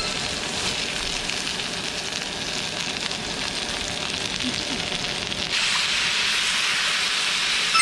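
Green onions and ground meat sizzling steadily on a hot griddle pan over a gas burner. The sizzle grows louder about five and a half seconds in, as chopped onion goes onto the pan and is stirred with a wooden spoon.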